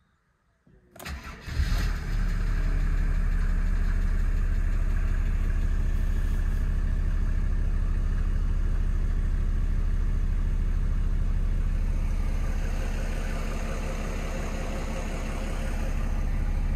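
Mercedes-Benz W140 S350 TurboDiesel's 3.5-litre OM603 straight-six diesel on a morning cold start, heard from inside the cabin: about a second in it cranks briefly, catches, and settles into a steady idle with the typical diesel clatter.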